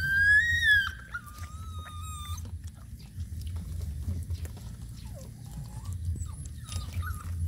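Nursing puppies whining: a high, wavering whine in the first second, then a lower held whine to about two and a half seconds in, followed by faint short whimpers and small clicks. A steady low hum runs underneath.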